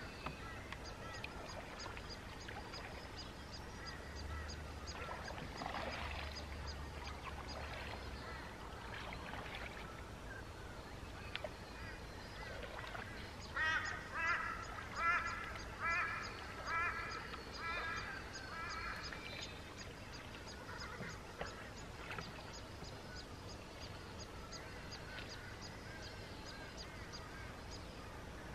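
A bird calling in a run of about eight short calls, roughly one every two-thirds of a second, fading towards the end.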